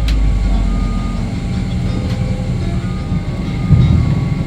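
Steady low rumble inside a Boeing 767-300 airliner cabin, with a sharp click at the start and a louder surge of rumble near the end.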